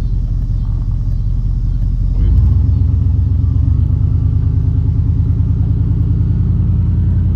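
Truck engine running steadily as it drives, getting louder about two seconds in.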